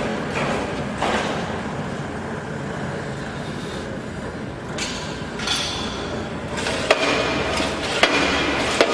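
Steady mechanical background noise with scattered sharp metallic clinks and knocks; three louder ones come in the last two seconds.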